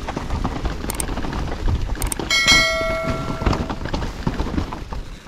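Mountain bike riding down a rough trail: a steady rumble and rattle from the tyres and bike, with scattered knocks. About two and a half seconds in, a high ringing squeal lasts about a second.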